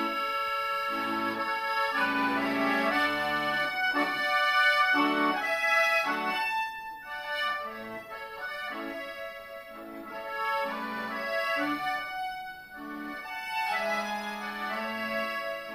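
Piano accordion played solo: held melody notes over regularly repeating bass and chord notes, the playing growing quieter for a moment about halfway through and again about three-quarters of the way in.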